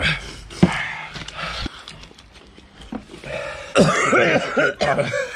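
A man coughing and clearing his throat, with a louder drawn-out vocal noise about four seconds in, as the heat of Carolina Reaper hot sauce catches his throat.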